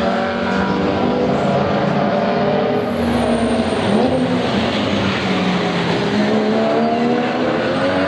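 Several racing car engines at high revs, overlapping as the cars pass through a corner one after another. The pitch drops about halfway through, then climbs steadily over the last two seconds as a car accelerates out of the corner.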